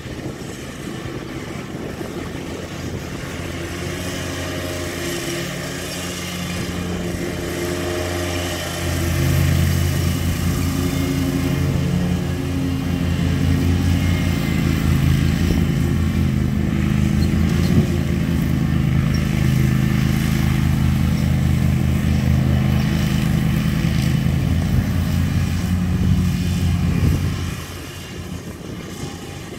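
Zero-turn riding lawn mower's engine running steadily while mowing, growing louder about a third of the way in as the mower passes close, then dropping away near the end.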